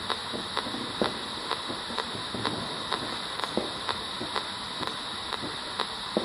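P-SB7 Spirit Box sweeping the AM radio band: a steady hiss of radio static with a thin high whine, broken by a sharp click about twice a second as the set jumps to each next station.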